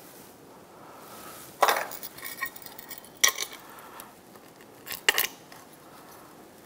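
A few sharp metallic clinks and clacks of a compression tester's metal fittings as they are handled and coupled to the test hose. The loudest come about a second and a half in, around three seconds in, and a pair around five seconds in.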